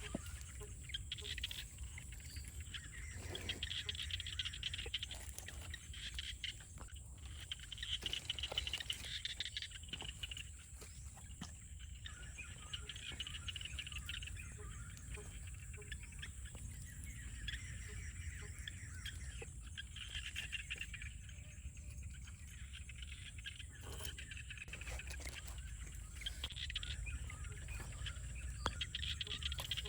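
Countryside ambience: a steady high insect drone, with chirping animal calls that swell and fade every couple of seconds. Scattered clicks and knocks and a low rumble run underneath.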